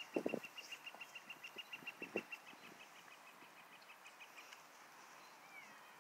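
A bird calling a long, even series of short high notes, about six a second, fading out about four and a half seconds in, with a short sliding call near the end. A few soft thumps near the start.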